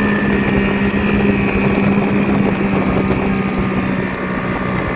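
Yamaha 85 hp two-stroke outboard motor, cowling off, running steadily at cruising speed under way, over the rush of wake and wind.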